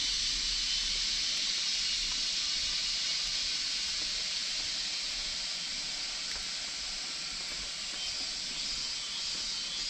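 Steady, high-pitched chorus of forest insects such as cicadas or crickets, easing slightly in the second half.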